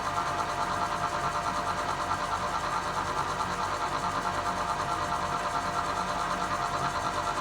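Bridgeport J-series vertical milling machine running steadily, its 1 hp three-phase spindle motor turning with the quill power down feed engaged.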